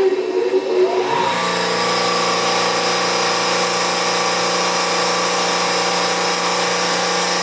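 Seawater reverse-osmosis watermaker starting up. Its high-pressure RO pump comes up to speed on a variable frequency drive, with a whine rising in pitch about a second in. It then runs at a steady hum alongside the feed pump, in full operation.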